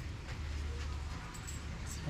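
Street background with a low steady hum and faint scattered ticks.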